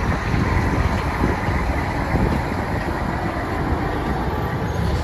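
Diesel semi tractor-trailer driving slowly past, its engine running steadily under the rumble of tires and trailer.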